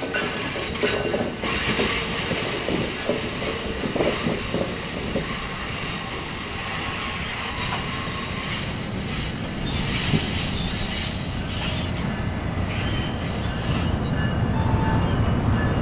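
NJ Transit Multilevel bi-level passenger coaches rolling past, their steel wheels clicking over the rail joints in the first few seconds. The rumble grows louder and deeper toward the end.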